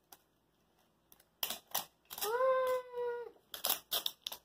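Plastic wrapping of an L.O.L. Surprise ball crackling in a few short bursts as it is peeled open. In the middle a child's voice holds one high note for about a second, with no words.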